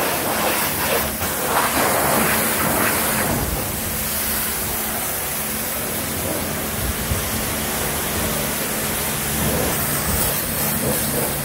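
High-pressure car wash lance spraying water in a wash bay: a steady hiss of spray over the wash pump's constant hum.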